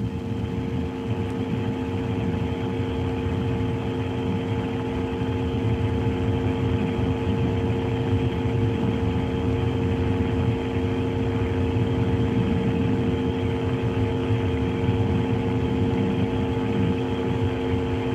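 Steady machine hum with several constant tones, the launch-pad ambience of ground equipment around a Soyuz-FG rocket in its final countdown. It grows slightly louder over the first few seconds, then holds level.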